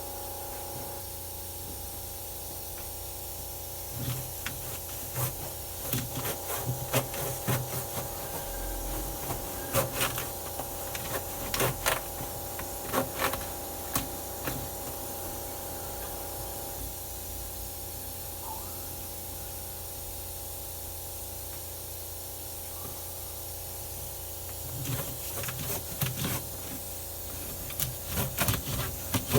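Two bouts of sharp clicks and knocks from hard parts being handled, over a steady hum.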